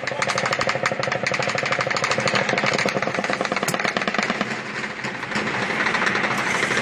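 Rapid, unbroken gunfire during a shootout, many shots a second with no pause, over a steady low engine hum.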